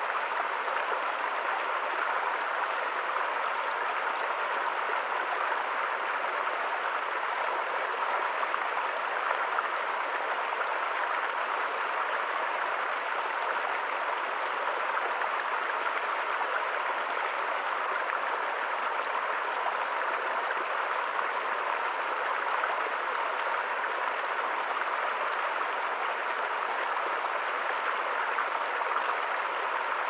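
Small woodland stream running over little cascades: a steady, even rush of water that does not change.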